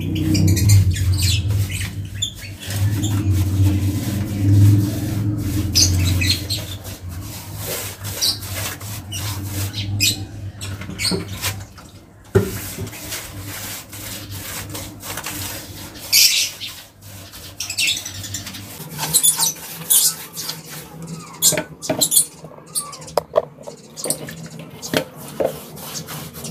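Brush strokes scrubbing a cement-based waterproofing coat onto a concrete floor slab: repeated short, scratchy strokes. A low steady hum runs under them through the first half.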